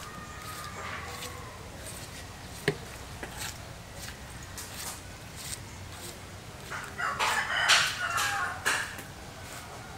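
Chickens clucking and a rooster crowing in the background, loudest in a burst from about seven to nine seconds in. There is one sharp knock of the knife on the wooden chopping block a little under three seconds in.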